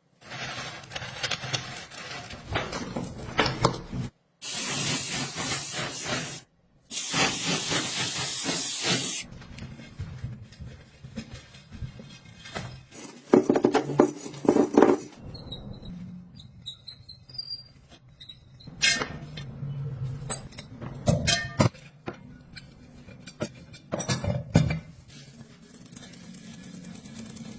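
Spray hissing in two long bursts of about two seconds each, then scattered clicks and knocks of handling parts, broken by abrupt cuts.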